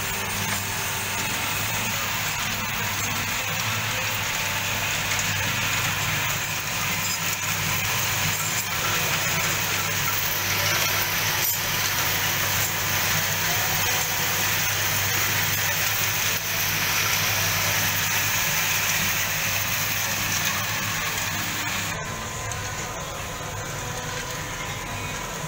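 Cocoa bean roasting machine running: a steady low hum from its motor-driven drum under a broad hiss. Near the end the sound drops slightly and changes.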